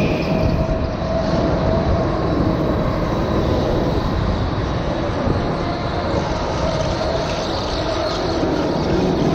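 Indoor go-kart's small engine running under throttle as the kart laps, heard from a camera mounted on the kart, with heavy rumble and vibration noise; the engine's pitch wavers with the throttle through the corners.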